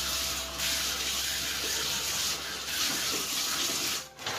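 Bathtub tap running, water pouring steadily into the tub; it stops abruptly about four seconds in.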